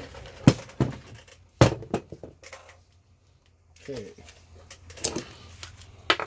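A handful of sharp knocks and clinks of hand tools against metal parts while prying at a fastening, the loudest about half a second and a second and a half in.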